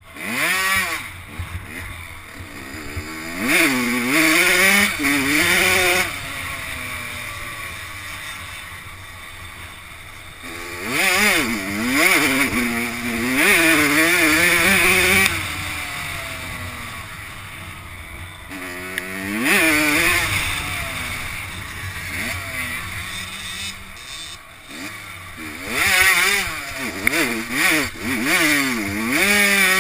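Kawasaki KX85 two-stroke dirt bike engine being ridden hard, heard from a helmet camera. It revs up in loud surges and drops back again and again, over a steady rush of wind and track noise.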